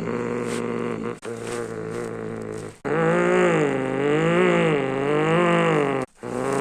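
BMW M3 Competition's twin-turbo inline-six running under load in a few short cut clips: first a steady drone, then the engine note rising and falling several times with the throttle, and rising again near the end.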